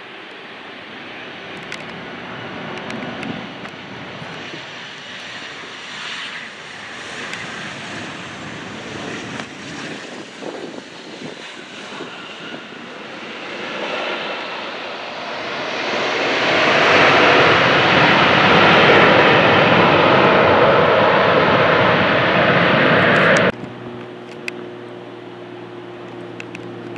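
Airplane engines growing steadily louder as an aircraft passes close, loudest over the last several seconds, then cut off abruptly about three seconds before the end, leaving a quieter steady hum.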